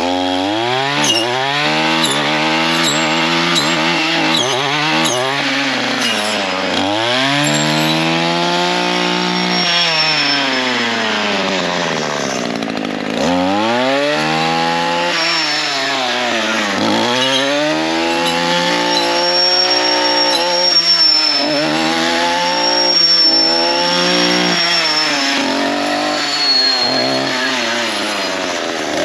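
Gas string trimmer fitted with a saw blade cutting through privet and wisteria stems, its engine revving up and dropping back over and over, about every three to four seconds, as the blade bites into the wood. Sharp clicks of the blade striking branches come in the first few seconds.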